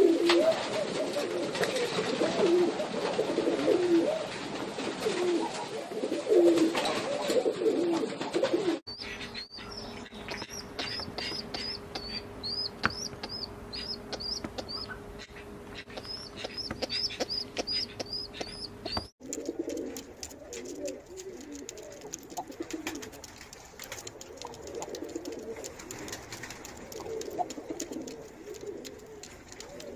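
Domestic pigeons cooing, a run of low, repeated coos. For about ten seconds in the middle this gives way to quick, high repeated chirps over a steady hum, and then the cooing returns.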